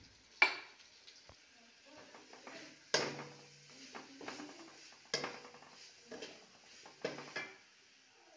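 A metal spatula stirring and scraping a thick masala in a metal kadai, knocking against the pan with four sharp clanks about two seconds apart, each ringing briefly.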